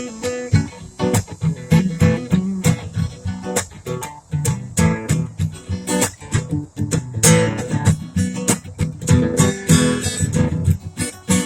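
Acoustic guitar music, strummed and picked in a quick, steady run of strokes.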